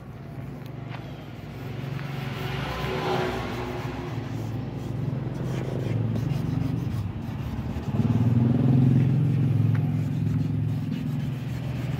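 A motor engine running, its low hum growing louder over the first couple of seconds and stepping up sharply about eight seconds in.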